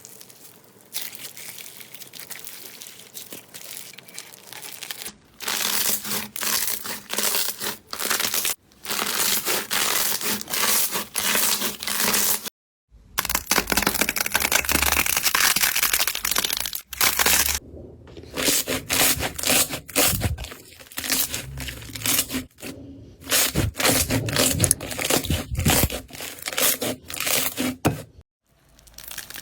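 Slime being handled: squeezing, poking and stretching that give dense runs of small crackles and clicks, in a string of short takes that cut off abruptly every few seconds.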